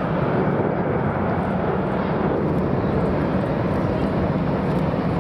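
Airbus A340-300's four CFM56 turbofans at takeoff thrust as the airliner rotates and lifts off: a loud, steady jet engine noise, heaviest in the low range.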